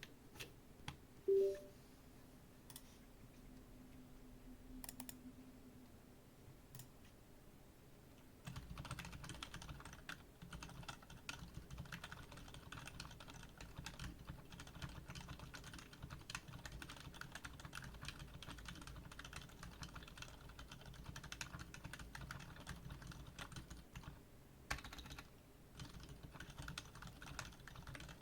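Typing on a Keychron K4 V2 keyboard with lubed Outemu Silent Gray switches, a steel plate and case and plate foam. For the first several seconds there are only a few scattered key presses and a brief tone. About eight seconds in, fast continuous typing begins, with a short pause near the end.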